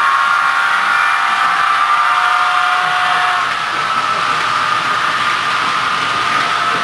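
HO-scale model trains running on the layout: a steady mid-pitched hum made of several held tones. One lower tone stops about three and a half seconds in.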